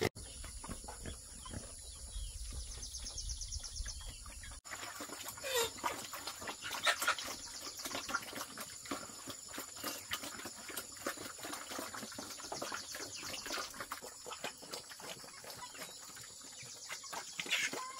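Scattered short animal calls and clicks over a steady high-pitched tone, with a sudden break about four and a half seconds in.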